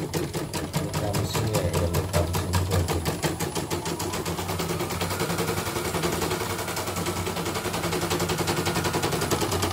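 Portable computerized embroidery machine, covers off, stitching in a rapid, even clatter of needle strokes over a low motor hum. It runs smoothly: the repaired machine is sewing properly again.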